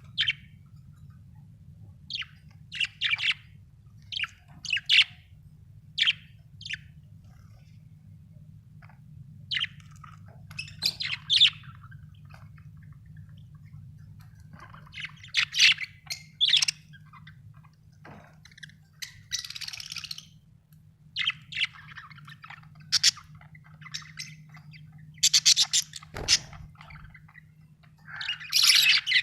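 Budgerigars chirping in short, scattered bursts with pauses between them, over a faint steady low hum.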